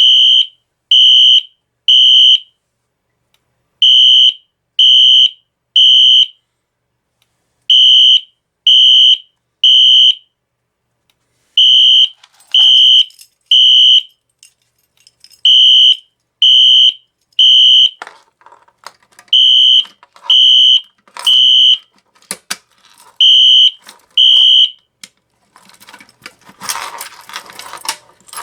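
Wheelock NS-24MCW fire alarm horn sounding a temporal-three evacuation pattern after a pull station is pulled: three short, high-pitched blasts about a second apart, then a pause, over and over. It cuts off partway through a group near the end, and clicking and rattling handling noise follows.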